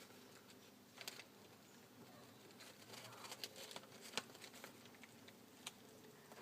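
Near silence with a few faint, scattered taps and clicks.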